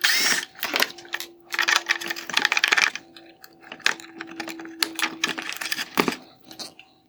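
Torx screwdriver backing out the T20 screws from a headlight's LED drive unit: a rapid, irregular run of clicks, taps and scrapes of the tool on the screws and plastic housing.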